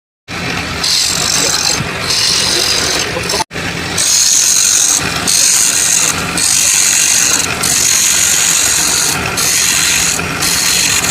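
Power tool running and cutting or shaping wood, a steady hum under a high hiss that dips and returns every second or so. Cuts off abruptly about three and a half seconds in, then carries on.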